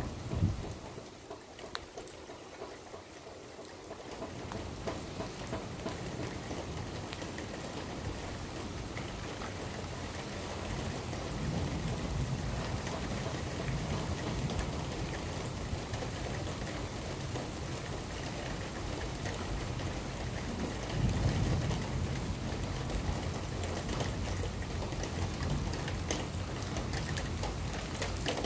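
Steady rain falling, with scattered drops ticking close by. Twice, about a third and again two-thirds of the way through, a deeper rumble swells up under the rain.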